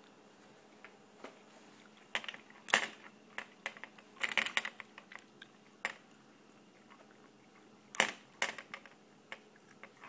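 A bobby pin picking a steel handcuff's lock: irregular metal clicks and scrapes, with the cuff rattling on the wrist, coming in short clusters, the loudest about three seconds in and about eight seconds in.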